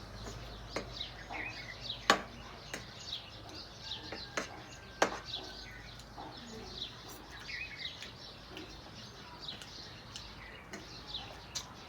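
Small birds chirping over and over in short, downward-sweeping chirps. A few sharp clicks and taps are scattered through, the loudest about two and five seconds in.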